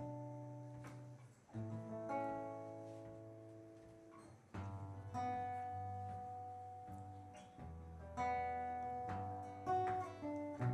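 Acoustic guitar playing a slow song introduction: chords struck and left to ring out, a new chord every second or two.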